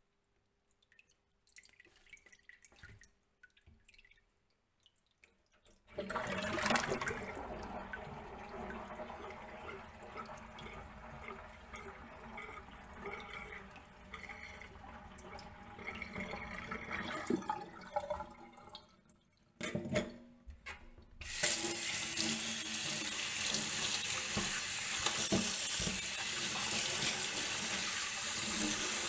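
Kitchen tap water running into a stainless steel sink as raw quail are rinsed under it. A thin stream starts about six seconds in and breaks off briefly, then a louder full stream splashes over the birds and into the sink for the last third.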